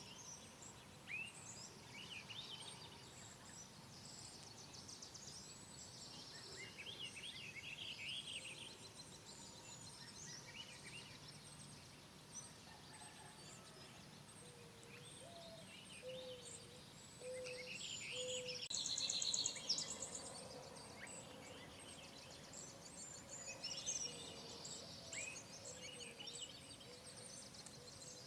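Several birds chirping and singing together: many short, high calls and quick trills overlapping, with a few lower whistled notes near the middle. A fast, buzzy trill about two-thirds of the way through is the loudest call.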